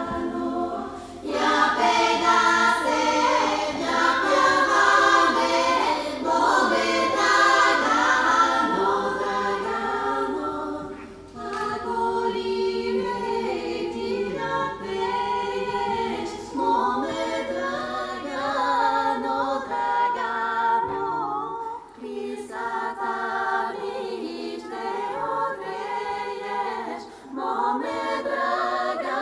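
Women's a cappella vocal ensemble singing a Bulgarian folk song, several voices together in harmony, in phrases with short breaks between them.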